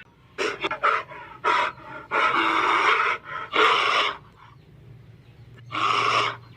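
An animal making a series of breathy, hissing huffs without clear pitch: several quick ones, then longer drawn-out ones, with a pause before a last one near the end.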